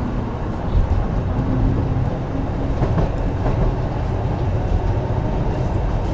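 A tram running on its rails, with a steady rumble.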